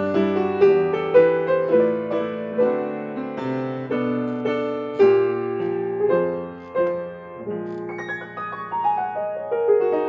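Upright piano played solo: a slow tune of melody over sustained chords, with a descending run of notes near the end.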